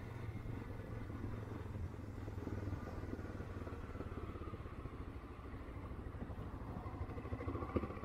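Motorcycle engine running steadily while riding, a low, even drone.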